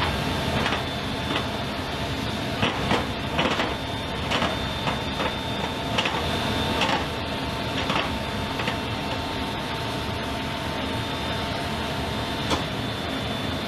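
C-17 Globemaster III's aft cargo door and ramp closing: a steady mechanical whine over a steady rush, broken by a series of clunks and clicks. Near the end one of the whining tones stops with a clunk.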